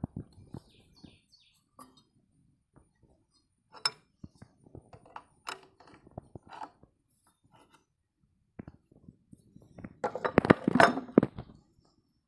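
Adjustable spanner clinking on the metal fittings of a diesel fuel filter as the old filter is unbolted: scattered light metal clinks and taps, then a quick run of louder clinks and rattles about ten seconds in.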